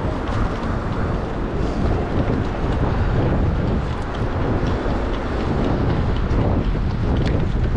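Wind buffeting the microphone of a moving bicycle, a steady low rumble mixed with the noise of city traffic.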